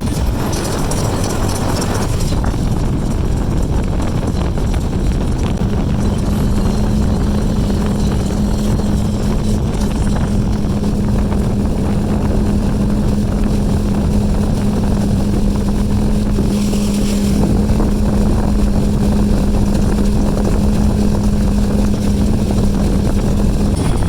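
Motorboat running at speed across open water, with wind buffeting the microphone. A steady engine drone becomes prominent about five seconds in and holds.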